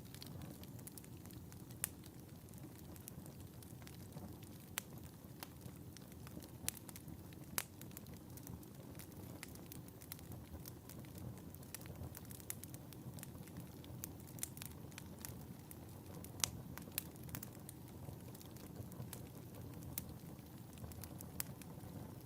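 Wood fire burning in a fireplace: a steady low rumble of flames with irregular sharp crackles and pops, a few louder snaps scattered through.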